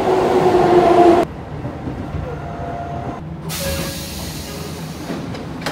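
Commuter train moving along a station platform, its running noise carrying a few steady whining tones; the sound cuts off suddenly about a second in. A lower steady train rumble follows, with a burst of hissing noise a little past the middle.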